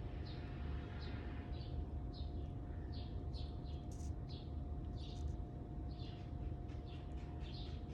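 Birds chirping in the background: a run of short, high, repeated chirps, about two a second, over a faint steady hum.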